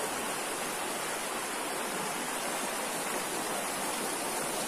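Small clear-water stream rushing steadily over rocks, splashing down a little drop.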